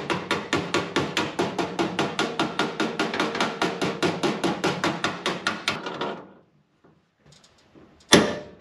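Body hammer striking sheet-steel floor pan in a fast, even run of about six or seven blows a second, the metal ringing under them, as the panel edge is hammer-formed around the cowl. The blows stop about six seconds in, and a single louder metal clank follows near the end.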